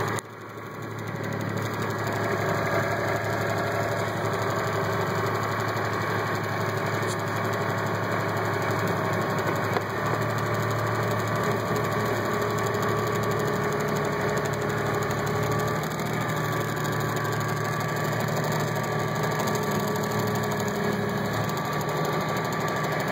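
Kubota compact tractor's diesel engine running steadily while its front loader pushes through deep snow, heard up close from the operator's seat. It dips briefly at the start and comes back up over about two seconds.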